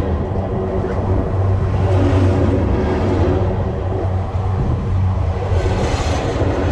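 Freight train cars rolling past close to the track: a steady low rumble and rail hum, with a hiss of wheels on rail swelling now and then.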